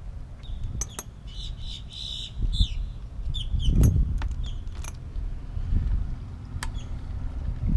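Wind rumbling on the microphone, with scattered sharp clicks of hand tools against the metal unit and a louder knock about four seconds in. A few short high chirps sound in the first half.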